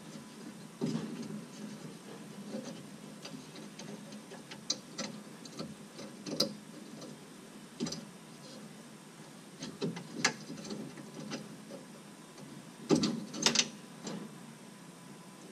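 Irregular small clicks, taps and knocks of hands working the plastic and metal flap linkage on a Mercedes SLK230 Vario roof's folding shelf while fitting the tensioner ropes. The loudest are a few sharp knocks close together about 13 seconds in.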